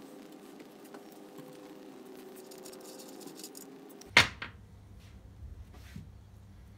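Metal mower gears and parts handled on a workbench: one sharp clank about four seconds in, then a few lighter knocks, over a faint steady hum.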